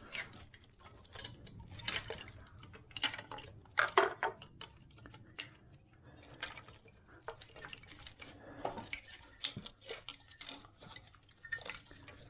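Irregular clicks, taps and light metallic clinks of hard parts and tools being handled during wiring-harness work, with a sharper knock about four seconds in.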